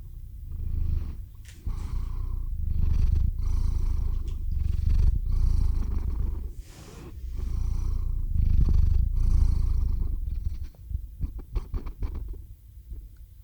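Domestic cat purring right up against the microphone, a deep rumble that swells and dips in long cycles with its breathing. Near the end the purr drops away and a few faint clicks are heard.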